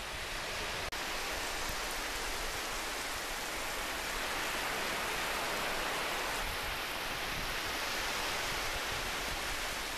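Steady rush of shallow seawater washing over sand at the water's edge.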